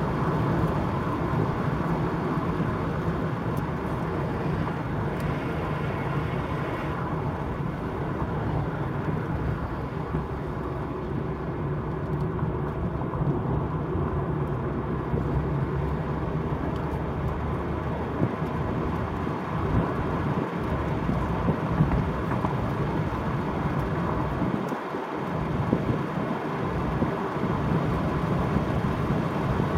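Wind and road noise inside an open-top Peugeot 307 CC convertible cruising at speed: a steady rush with a heavy low rumble from wind buffeting the microphone, easing briefly about twenty-five seconds in.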